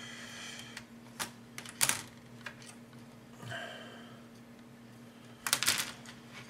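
Plastic model-kit sprue being handled and flipped over on a cutting mat: light plastic clicks and clatter, with a sharp knock about two seconds in and a quick cluster of knocks near the end.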